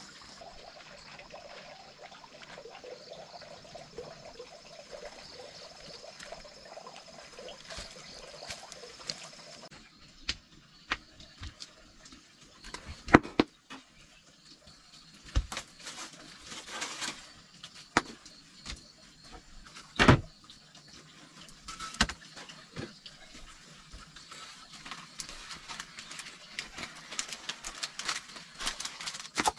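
Water trickling and sloshing, then a series of separate sharp knocks and clatters, two of them much louder than the rest.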